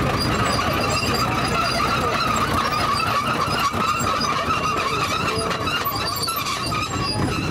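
Marshall tractor engines running in a steady low drone, with a continuous high, wavering squeal over them.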